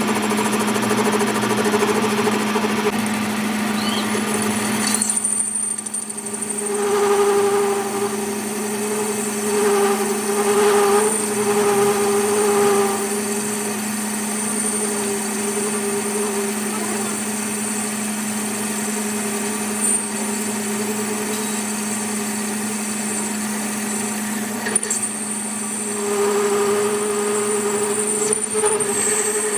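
Workshop machine running steadily: a constant motor hum with a thin high whine, and a middle tone that swells and fades in stretches as it works.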